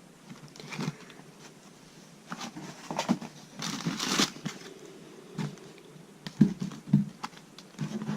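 Plastic packaging crinkling and rustling in irregular handfuls as items are unpacked, with a few sharp knocks.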